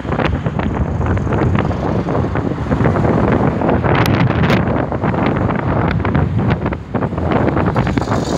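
Wind buffeting the microphone with a steady, heavy rumble, over the sound of road traffic as cars drive past.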